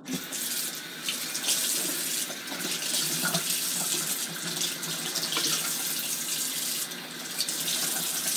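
Kitchen faucet running steadily, water splashing over a raw salmon fillet being rinsed under it. The water comes on right at the start.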